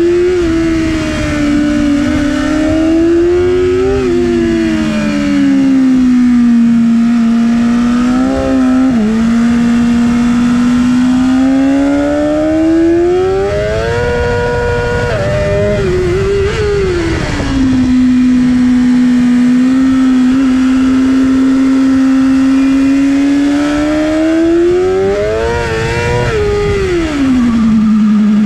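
2019 BMW S 1000 RR's inline-four engine at racing speed: the pitch climbs and drops again and again with throttle and gear changes, levels off briefly in the middle and holds steady for several seconds later on, then falls quickly near the end as the bike slows.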